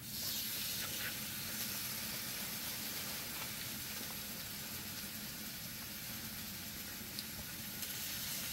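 Food sizzling in a hot pan: a steady hiss that starts suddenly, with a few faint ticks.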